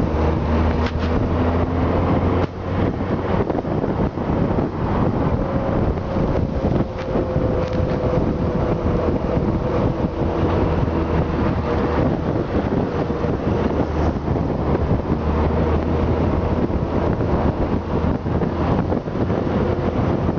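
Wind rushing over the microphone on a moving Honda Gold Wing touring motorcycle, with the steady low drone of its flat-six engine under it while cruising.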